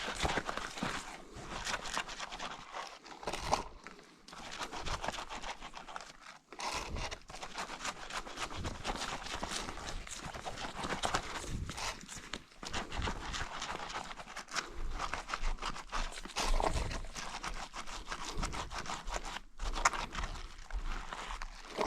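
A lamb's hooves clattering and scrabbling irregularly on a hard surface as it struggles against being washed.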